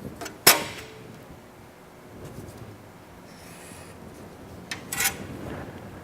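Layout tools being handled on sheet metal: a sharp click about half a second in and another around five seconds in, with faint scratching of a line being marked between them.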